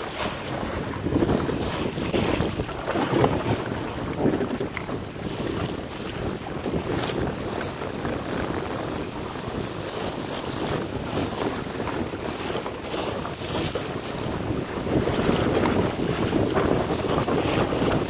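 Wind buffeting the microphone over water rushing and splashing along the bow of a Laser sailing dinghy under way. It is a steady rush, louder for a few seconds near the start and again near the end.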